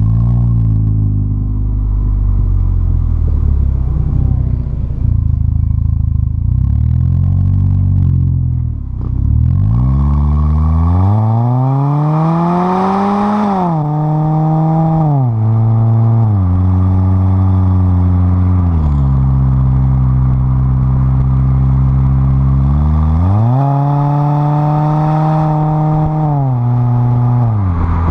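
2010 Ford Fusion 2.5-litre four-cylinder engine heard through its custom dual-tip exhaust, close to the tailpipes while driving. The exhaust note climbs steadily in pitch as the car accelerates from about ten seconds in, then falls back in several steps and holds steady. It climbs again near the end and steps down once more.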